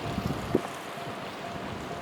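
Wind buffeting the microphone, a gusty low rumble with a sharp knock about half a second in.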